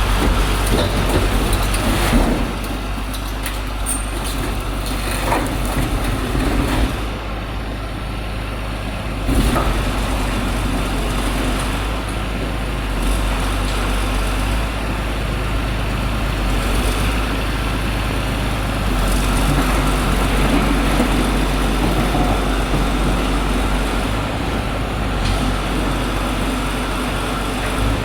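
Small diesel engine of a portable hydraulic baler running steadily. Its level dips a little about two seconds in and again around seven seconds, then jumps back up with a knock about nine seconds in.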